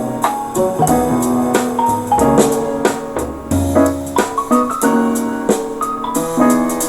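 Music with a piano-like keyboard playing a melody over a drum kit.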